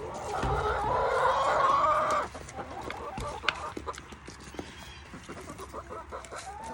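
Hens clucking. One bird gives a loud, drawn-out call of about two seconds near the start, followed by softer clucks and scattered short clicks.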